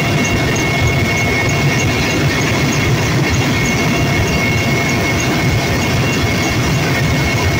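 Helicopter in cruise flight heard from inside the cabin: a loud, steady drone of engine and rotor noise with a constant high whine over it.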